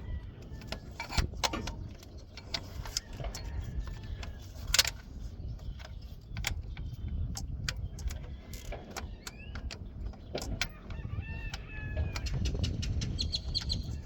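Irregular metallic clicks and knocks from hand tools working on the starter's mounting bolts of a backhoe, the sharpest a little before the middle, over a steady low rumble.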